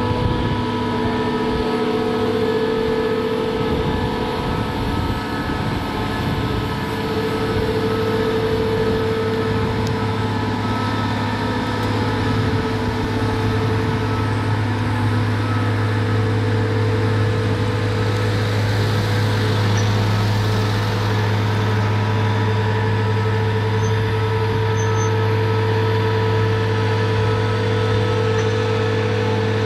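Terex mobile crane truck's diesel engine running at a steady speed: a constant low hum with a steady whine above it.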